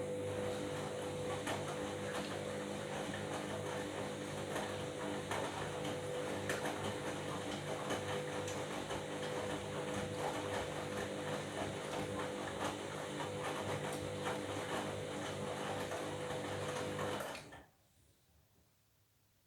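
Washing machine running: a steady motor whine with a continuous mechanical rattle, which cuts off suddenly a couple of seconds before the end.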